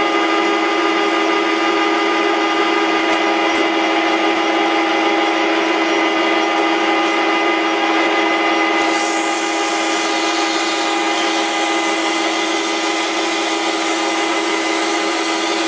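Metal lathe running at steady speed with an even motor and gear whine, spinning a steel workpiece. About nine seconds in, a loud hiss of oiled 80-grit emery cloth rubbing on the spinning steel joins it.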